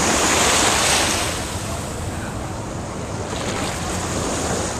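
Small waves breaking and washing up a beach, one surge louder in the first second or so, with wind buffeting the microphone.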